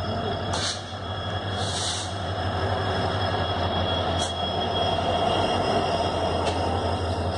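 Arriving express train's locomotive rolling past slowly alongside the platform: a steady low rumble with a few sharp clanks and a brief hiss about two seconds in.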